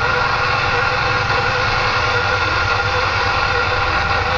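Kenworth T2000 semi-truck's diesel engine running steadily, heard from inside the cab.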